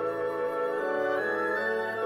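Instrumental background music: a melody of held notes that steps to a new pitch every half second or so.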